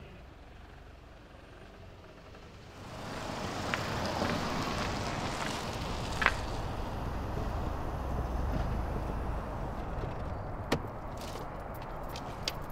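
Outdoor wind and traffic noise that rises about three seconds in and then holds steady, with a few sharp clicks; the last click, near the end, comes from a car door being opened.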